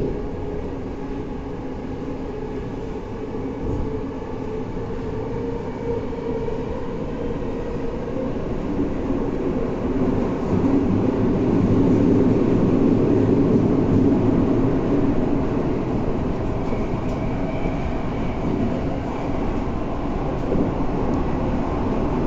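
Tokyo Metro Tozai Line train running in the tunnel, heard from inside the car: the steady hum of its permanent-magnet synchronous traction motors over the rumble of the wheels on the rails. It grows louder through the middle, and a higher tone joins in later.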